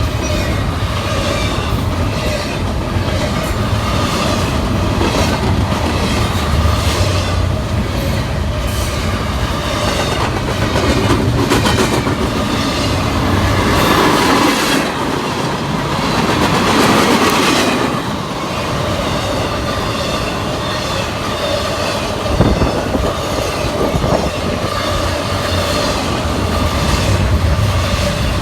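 CSX freight train's cars rolling past with a steady rumble, the wheels clicking over rail joints in a repeating rhythm that grows louder for a few seconds about halfway through.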